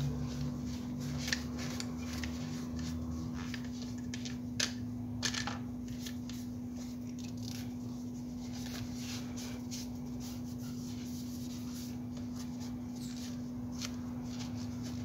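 Cloth rubbing over a plastic spinning fishing reel as it is wiped down and turned in the hands, with scattered light clicks and knocks from handling it, a few sharper ones in the first few seconds. A steady low hum runs underneath.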